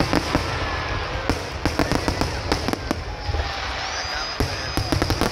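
Aerial fireworks going off: sharp crackling bangs in quick clusters, near the start, through the middle and again near the end.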